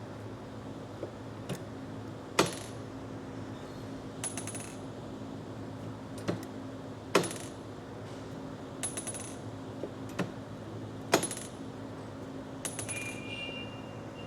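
Brown & Sharpe No 2 screw machine running with a steady hum, with sharp metallic clicks and jingling clinks repeating about every four and a half seconds. A faint high whine joins near the end.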